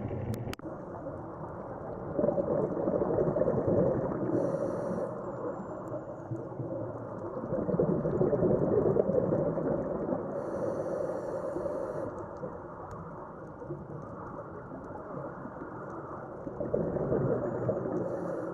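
Underwater water noise, muffled and dull, swelling and fading in slow surges, with a couple of brief high hissing bursts.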